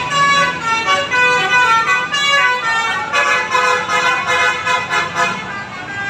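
Bus telolet horn, a set of tuned air horns, playing a fast tune of short stepped notes, with several notes sounding together from about three seconds in.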